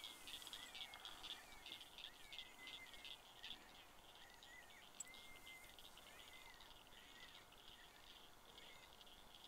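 Faint night chorus of small calling animals: a steady, fast-pulsing high trill with short gliding chirps repeated over it. There is one sharp click about five seconds in.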